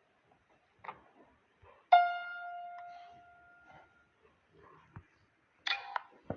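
A single keyboard note is struck about two seconds in and rings out, fading over about two seconds. A short, higher-pitched sound follows near the end.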